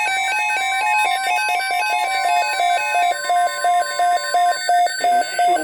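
Weather radio alert tones: a steady high NOAA Weather Radio alarm tone, near 1050 Hz, under an electronic beeping alarm. The beeping changes from a fast alternating two-note beep to a slower on-off beep of about two beeps a second, about three seconds in. The steady tone stops near the end while the beeping goes on.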